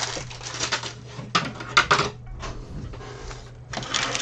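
Small plastic building bricks rattling and clicking against each other as they are handled and sorted, in several short bursts.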